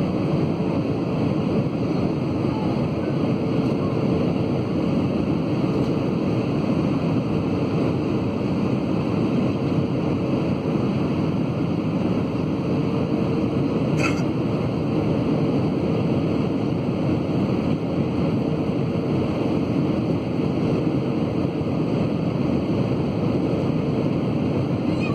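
Steady engine and airflow noise inside an Airbus A320's cabin on approach, with a faint steady hum running through it. One short click about halfway through.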